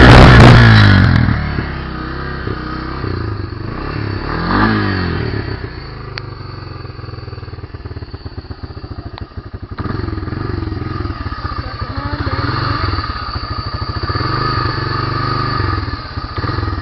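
Honda 300 FourTrax ATV's single-cylinder four-stroke engine through its stock exhaust: revved hard at first, dropping back about a second in, blipped once briefly, then running at a low, uneven idle. It has to be revved to keep it from stalling.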